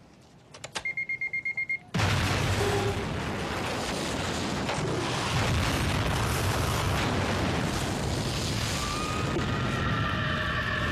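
A quick run of about eight high electronic beeps in just over a second, then a sudden loud bomb explosion whose blast rumbles on without a break.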